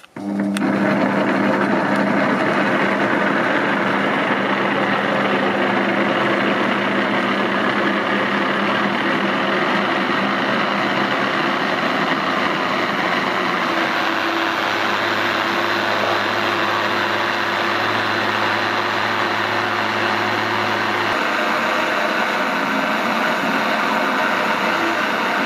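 Electric countertop blender running at full speed, chopping chopped carrots in water down to a pulp. The motor starts abruptly and runs on steadily with a loud hum.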